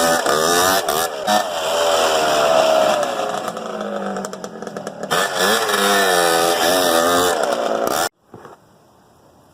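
Kawasaki KX dirt bike engine revving, its pitch rising and falling over and over, then cutting off suddenly about eight seconds in.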